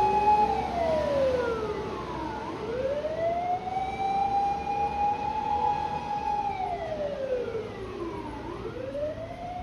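Japanese fire department command vehicle's electronic siren wailing on an emergency run. A high tone is held, then glides slowly down and back up, dipping low twice at a cycle of about six seconds.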